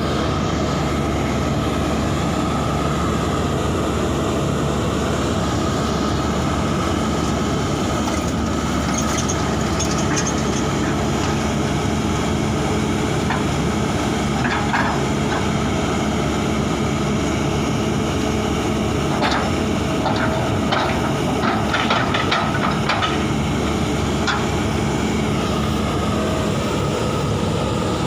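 Heavy diesel engine running steadily, with a few short metallic squeaks and clicks scattered through the middle and later part.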